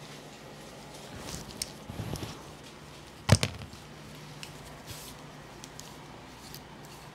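A barber's comb and gloved hands working through hair, with soft rustling, then one sharp clack about three seconds in and a few faint ticks, over a steady low hum.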